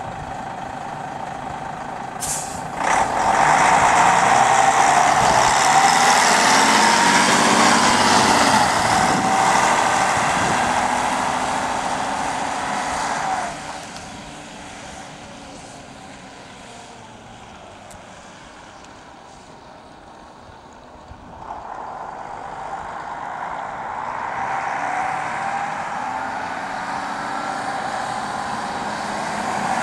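The underfloor straight-six diesel engine of a 1983 Volvo B10M-60 city bus pulling away and accelerating past, its engine note rising, with a short hiss of air about two seconds in. The sound drops off sharply about 13 seconds in as the bus moves away, then grows again as it comes back toward the listener.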